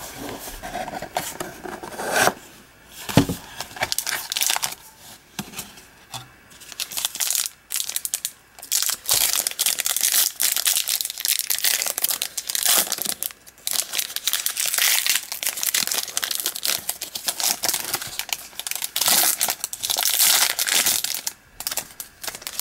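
Foil trading-card pack crinkling and tearing as it is worked open by hand, in irregular bursts of crackly rustling. A single short knock about three seconds in.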